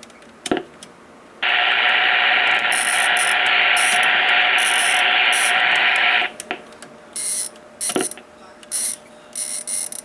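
Pace 1000-B CB radio: a steady rush of receiver static from its speaker cuts in about a second and a half in and cuts off about six seconds in, with a few sharp clicks. A high-pitched alarm sounds in short on-off bursts through the middle and second half.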